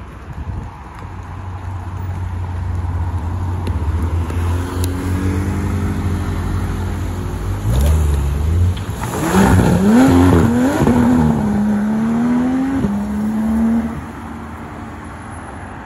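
Porsche 911 GT3 RS's naturally aspirated flat-six rumbling as it pulls out, then accelerating hard away with the pitch climbing and dropping at two upshifts before fading into the distance.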